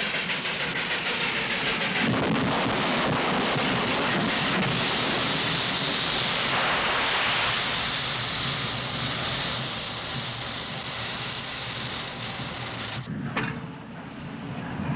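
Derailed steam locomotive crashing: a long, loud rumble with steam hissing out strongly midway. It cuts off sharply about thirteen seconds in, leaving quieter train sounds with a few clicks.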